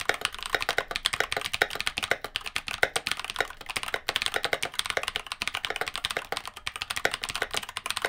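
Steady, fast typing on a Keychron K12 60% mechanical keyboard fitted with Glorious Panda tactile switches: a continuous run of quick key clicks, several a second.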